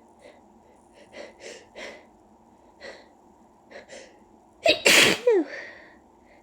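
A person's dust-allergy sneeze: a few short catching breaths over several seconds, then one loud sneeze about five seconds in, ending in a voiced cry that falls in pitch.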